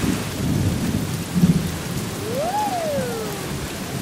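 Cartoon storm sound effects: steady rain with rumbling thunder in the first half, and a single whistling tone that rises and falls a little after the middle.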